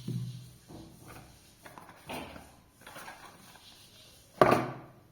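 Soft scattered clicks and rustles, then one sharp knock about four and a half seconds in.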